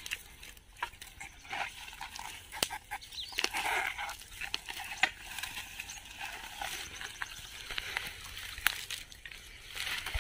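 Dry scrub and thorny branches rustling and crackling as people push through on foot, with sharp snaps of twigs every few seconds.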